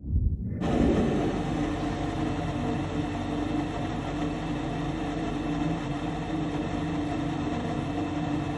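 Furnace motor running with a steady hum that starts suddenly at the outset and holds level.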